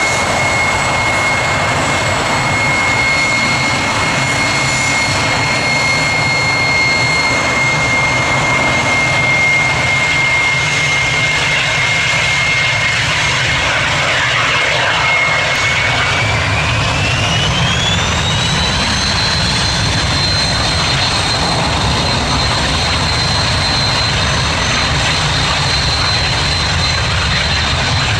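Twin turbofan engines of a Dassault Falcon 20 business jet running with a steady high whine over a rumble. About sixteen seconds in the whine rises in pitch and then holds higher as the engines are spooled up.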